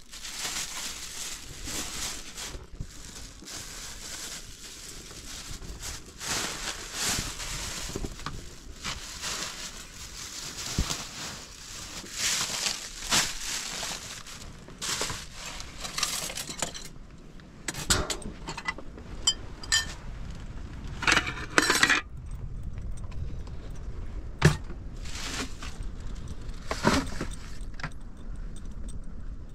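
Kitchenware being handled during cooking: repeated scraping and rustling for the first half, then sharp clinks, a few ringing briefly, and knocks.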